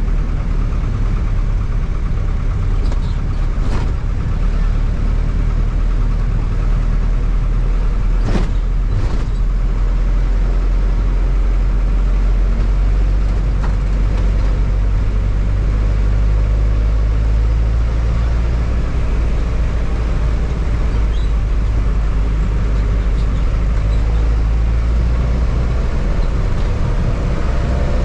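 A 2009 Hyundai diesel bus engine running steadily under way, heard from inside the cabin, with a deep low hum. A few sharp knocks cut through, two of them about eight and nine seconds in.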